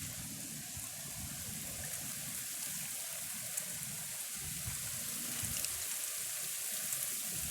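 Heavy rain falling steadily as a dense, even hiss, with wind buffeting the microphone in low rumbles that come and go.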